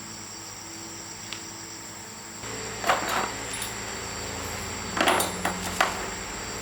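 Several sharp metallic knocks and clinks, as of metal tools or parts being handled, in a short run a few seconds in and a cluster near the end, over a steady high-pitched background tone.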